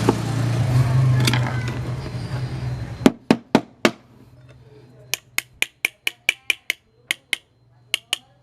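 A power tool's motor runs with a steady hum and stops abruptly about three seconds in. A run of sharp hammer taps follows: four quick ones, then about a dozen evenly spaced at roughly four a second.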